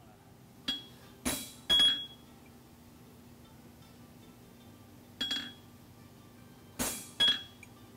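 Hammer blows on a hand-held steel punch set against a steel horseshoe on the anvil, marking a straight line. Six sharp strikes in two groups of three, separated by a pause of about three seconds, each with a short high metallic ring.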